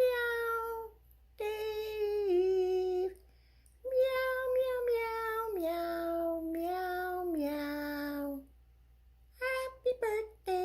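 A high voice singing a melody in long held notes, in several phrases with short pauses between them.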